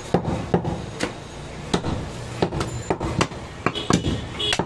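Butcher's cleaver chopping goat meat and bone on a wooden stump block: a quick, irregular series of sharp knocks, closer together near the end.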